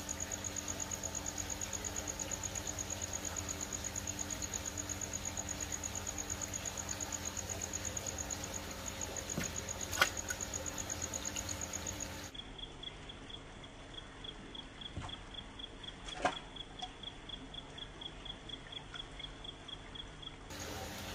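Air bubbling and water splashing in an aerated koi tank over a steady low pump hum, with a high, thin chirp pulsing about five times a second. About twelve seconds in the sound drops and the chirp sits lower for several seconds; two sharp clicks stand out, one near the middle and one later.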